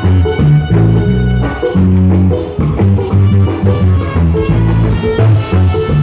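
Reggae orchestra playing live: a prominent electric bass line of strong, rhythmic low notes, with the drum kit and hand drums keeping the beat.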